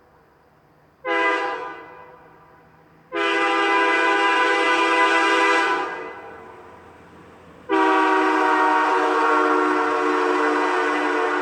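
Princess Auto chrome three-bell air train horn with plastic diaphragms, a copy of the Nathan Airchime K3L, sounded through a ball valve: a short blast, then a long blast of nearly three seconds, then another long blast still sounding at the end. It sounds a rich, slightly tinny and brassy chord, ringing down briefly after each blast.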